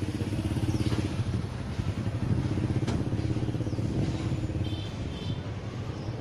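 A motorbike engine running close by at low speed, with a steady low hum and light street clatter.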